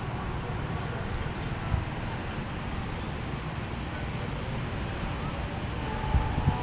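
Wind buffeting the microphone over a low, steady rumble from a diesel train approaching in the distance, with a faint tone coming in near the end.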